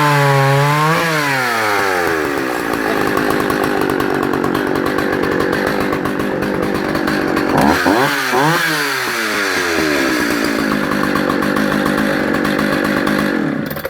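Partner Farmsaw F55 two-stroke chainsaw cutting timber at full throttle. Its pitch drops as the chain bites into the wood and stays lower under load, with a brief rev up and back down about eight seconds in. The sound cuts off suddenly near the end.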